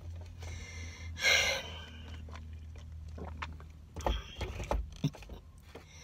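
Quiet car interior with a steady low hum. A short breath about a second in, then a few soft knocks and mouth clicks from a person shifting in the seat.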